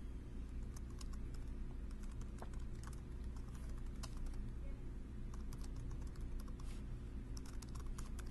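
Typing on a computer keyboard: a quick, irregular run of key clicks over a steady low hum.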